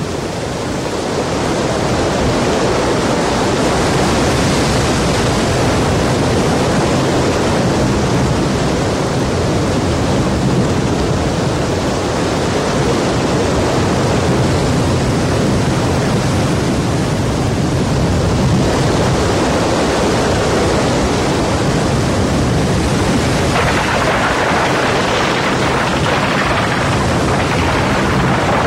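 Rushing floodwater: a steady, dense noise of churning water with a low rumble, turning hissier about three-quarters of the way through.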